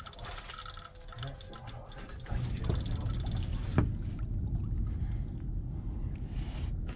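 Fishing reel's mechanism ticking rapidly while a big fish pulls on the bent rod. About two seconds in, a louder low rumble takes over, with one sharp click a little later.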